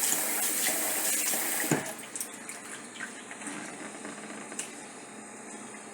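Kitchen tap running into a pot of rice being rinsed, shut off with a knock just under two seconds in. Afterwards only small splashes and clicks are left as the rinse water settles.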